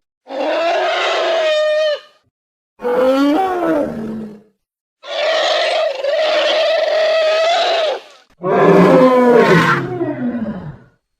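Four long pitched animal calls with short silences between them: a sound-effect reconstruction of an Ice Age beast's call. The third call holds one steady pitch for about three seconds, and the last falls in pitch as it fades.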